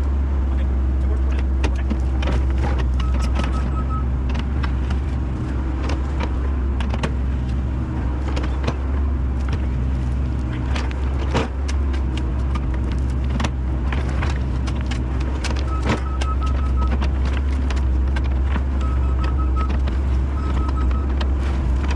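Hydraulic excavator digging a trench in stony soil: its diesel engine runs steadily under frequent knocks and clatter from the bucket and stones. A few short runs of high beeps come in about three seconds in and again near the end.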